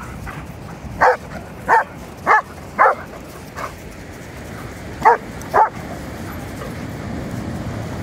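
A dog barking in play, six short sharp barks mostly in pairs, with a pause of about two seconds before the last two.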